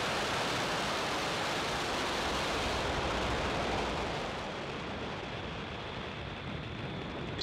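Falcon 9 first stage's nine Merlin 1D engines at full thrust during liftoff, heard as a steady rushing rumble. About four seconds in it loses its highest part and fades a little as the rocket climbs away.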